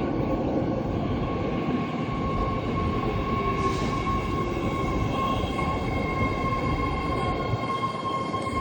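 BART train running: a steady rumble under a high whine of several held tones, with a short hiss a little under four seconds in.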